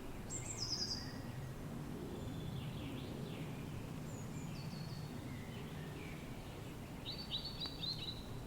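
Several birds chirping and singing over a steady low rush of wind. Quick runs of high, falling chirps come about half a second in and again around the middle, and a louder run of repeated notes comes near the end.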